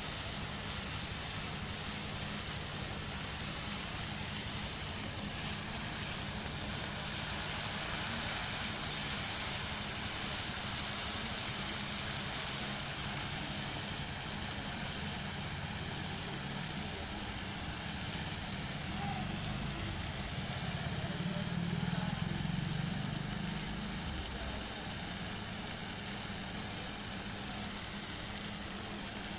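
Eggs and chopped onion sizzling in a frying pan over a wood fire, a steady hiss with faint crackles, over a steady low engine hum that swells a little about two-thirds of the way through.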